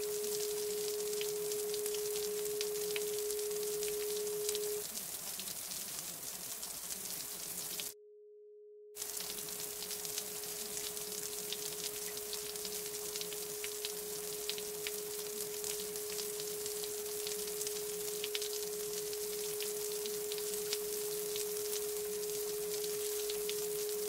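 A steady mid-pitched pure tone held on one note over an even, crackly hiss like rain or sizzling. The tone drops out about five seconds in and returns, and the whole sound cuts out for about a second around the eight-second mark.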